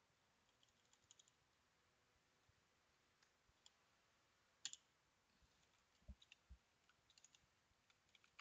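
Faint, scattered computer keyboard key clicks from typing, with the loudest click about halfway through, followed by two dull low knocks.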